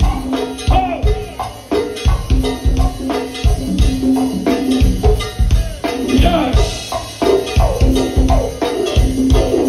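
Live go-go band playing: a heavy, steady drum beat with hand percussion and a bass line, loud in the club.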